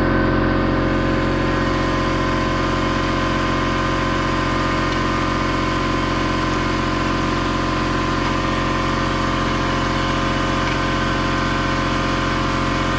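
A steady machine hum made of several even tones, running unchanged with no knocks or tool sounds standing out.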